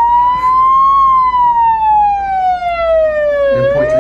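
Siren wailing in one slow sweep: the pitch rises for about a second, falls for about two and a half seconds, then starts to climb again near the end.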